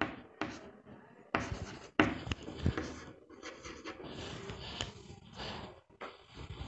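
Chalk writing on a chalkboard: an irregular run of scratches and short taps as words are chalked up.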